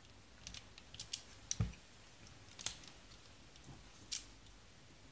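Light metal clicks and taps from the parts of a Ruger Security-Six revolver being worked loose by hand during disassembly, about six separate clicks, one of them a duller knock about a second and a half in.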